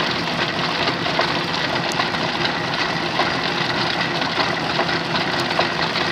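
1909 Hendey engine lathe running at idle with no cut, its electric motor driving the spindle through a stitched two-ply leather flat belt. The running sound is steady and even throughout.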